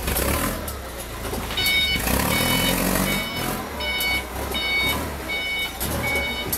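A vehicle's reversing alarm beeping steadily, about seven beeps at a little over one a second, starting under two seconds in, over the low rumble of a running engine.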